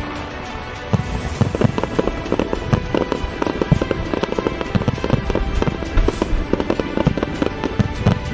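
Aerial fireworks going off in rapid, irregular succession, with many bangs and crackles starting about a second in, over music.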